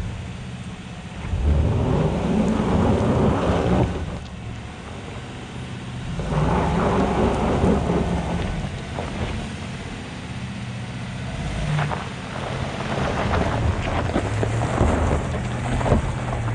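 2022 Chevrolet Silverado ZR2's 6.2-litre V8 revving under load in three surges as the truck climbs a loose, rocky hill, with tyres crunching and spinning on gravel. The truck comes up close near the end.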